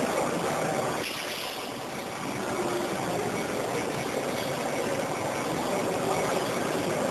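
Johnford ST-80CX CNC slant-bed lathe running, its spindle turning a large chuck: a steady machine hum with faint held tones, dipping slightly about a second in.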